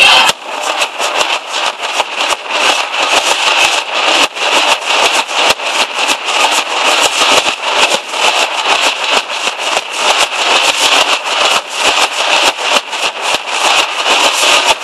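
Nashik dhol troupe drumming: large barrel dhols and smaller tashas beaten together in a fast, dense, driving rhythm.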